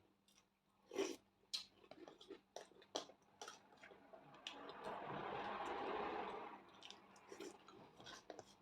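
A person chewing food close to the microphone, with many short wet clicks and smacks. About halfway through, a longer noisy mouth sound swells for roughly two seconds.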